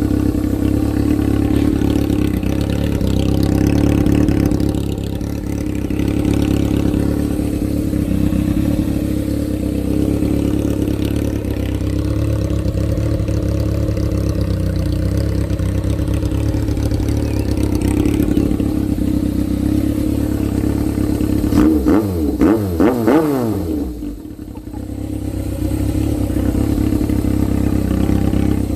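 Yamaha FZ600's inline-four engine idling steadily through a short slash-cut aftermarket muffler. Late on, a couple of quick throttle blips push the revs up and let them fall back, and the idle sags briefly before settling again.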